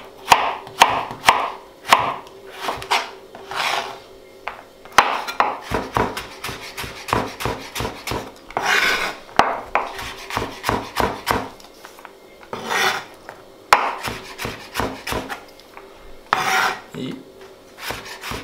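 Large chef's knife slicing a carrot into thin julienne sticks on a plastic cutting board: runs of crisp knocks of the blade on the board, several a second, with a few longer scraping slices in between.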